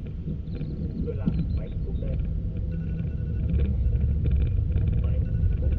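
Low, steady rumble of a vehicle moving on the road, getting louder about three and a half seconds in, with scattered light clicks and faint squeaky tones over it.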